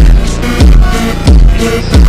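Background electronic music with a deep, booming kick drum that drops in pitch, hitting about every two-thirds of a second over sustained synth chords.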